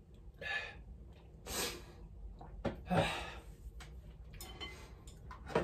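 A man's breathy exhales and gasps after a gulp from a drinking glass, four or five of them about a second apart, one with a short voiced "ha". Small clicks and a light knock near the end.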